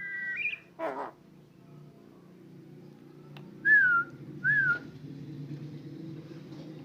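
Javan myna giving clear whistles: a short rising whistle at the start, a brief rough note about a second in, then two louder pure whistled notes close together a little before the middle, each dipping slightly in pitch, over a low steady background hum.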